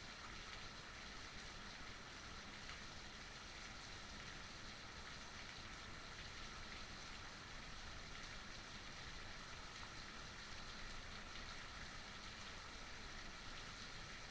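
Heavy rain falling steadily: an even hiss that does not swell or break.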